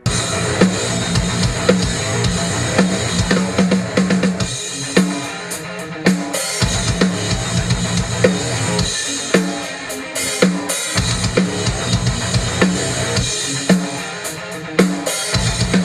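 Heavy metal drumming on a full drum kit, with bass drum and snare hits driving a loud, dense band mix that cuts in abruptly.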